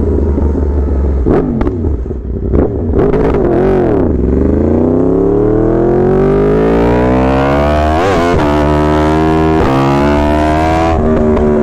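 Yamaha R1 inline-four sport bike engine running loud: a few throttle blips with the pitch dipping, then a long hard acceleration with the note climbing steadily, broken briefly twice by gear changes before climbing again.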